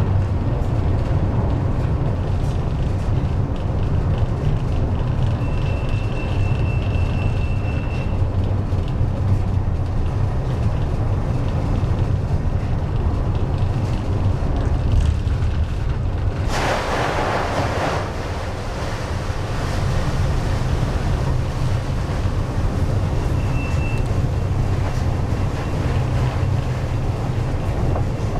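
Steady heavy low rumble of storm wind and sea on a ship in a hurricane. About sixteen seconds in comes a short loud rushing hiss, as of a wave or spray, and a faint thin high whistle sounds now and then.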